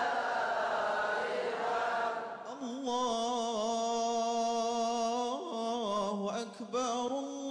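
Voices chanting together. About three seconds in, one voice takes over and holds long, slowly bending notes.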